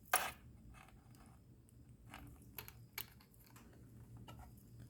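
Faint handling noise of small objects, a few scattered light clicks and taps, the strongest right at the start.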